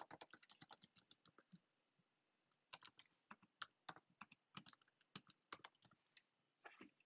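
Quiet computer keyboard typing: a quick run of key clicks, a pause of about a second, then more separate key strokes.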